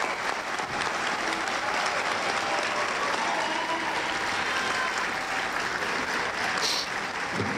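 Large audience applauding steadily, a dense, even clapping that holds throughout.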